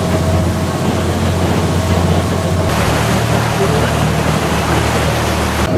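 Passenger boat's engine running with a steady low drone while under way, over the rush of water against the hull. The drone changes abruptly about three seconds in, where the recording is cut.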